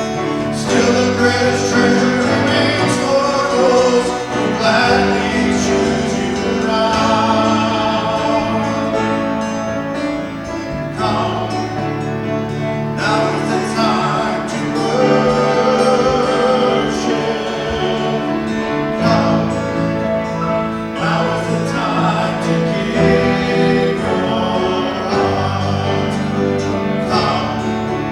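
Live worship song: voices singing a hymn-like melody over guitar and piano accompaniment.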